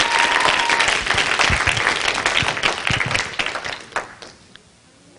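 Audience applauding: many hands clapping, fading out about four seconds in.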